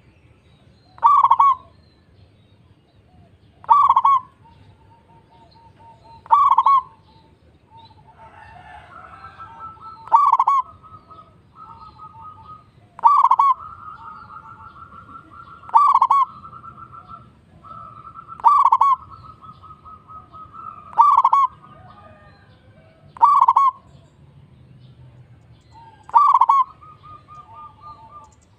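Zebra doves (perkutut) cooing: about ten loud, short calls, evenly spaced about two and a half seconds apart, with a softer, rolling trill running between and under them from about a quarter of the way in.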